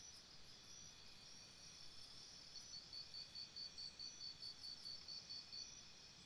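Faint crickets chirping: a thin, steady high trill, with a run of pulsed chirps at about four a second through the middle.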